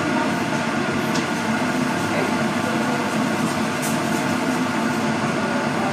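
Steady machine hum and hiss with faint voices in the background, and a couple of light clicks.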